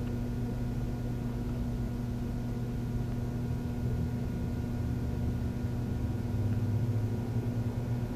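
A steady low mechanical drone with a constant hum, swelling slightly a little before the end.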